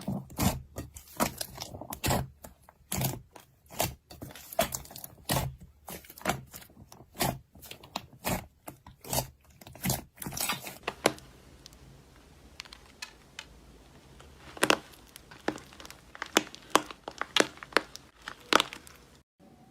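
Slime being squeezed and worked by hand, giving a run of sharp, irregular pops and crackles, dense at first and sparser after about eleven seconds.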